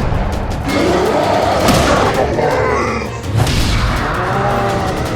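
Cartoon soundtrack: background music with a couple of sudden boom and thud impact effects, one about a second and a half in and another near the middle.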